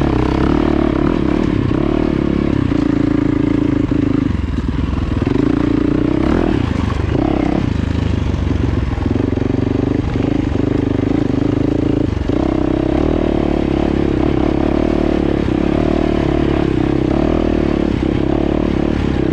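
Dirt bike engine running while being ridden along a rocky trail. Its note steps up and down several times as the rider works the throttle and gears.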